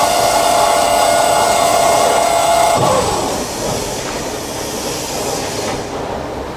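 High-speed carbide circular plate saw running an automatic cut through metal plate: a steady multi-tone whine that ends about three seconds in with a short falling pitch, leaving a steadier, quieter machine noise.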